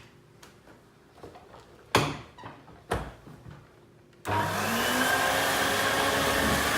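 Two sharp knocks, then the Volta Electronic 507 vacuum cleaner is switched on a little after four seconds in: its motor starts suddenly, its pitch rises briefly as it spins up, and it settles into a loud steady run.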